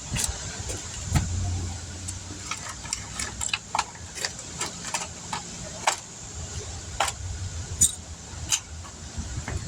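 Scattered sharp metallic clicks and clinks of hand tools and brake parts being handled, over a low hum of a vehicle engine running.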